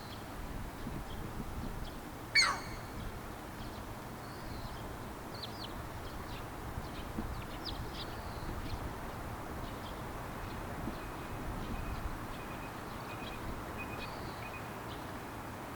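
Striated heron giving one short, loud call that falls steeply in pitch, about two seconds in. Faint chirps of small birds sound over a steady background hiss.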